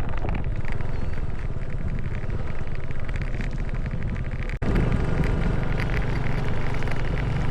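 A motor vehicle's engine running steadily while under way, a low even drone with road and wind noise over it. The sound drops out for an instant about four and a half seconds in, then carries on.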